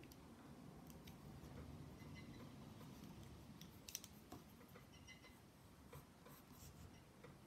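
Near silence with faint clicks of colored pencils being handled and swapped in the hand, one sharper click about four seconds in, then light pencil strokes on paper near the end.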